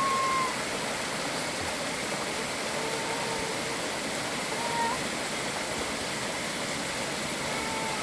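Water of a mountain valley stream rushing steadily, with a few faint thin whistle-like tones here and there.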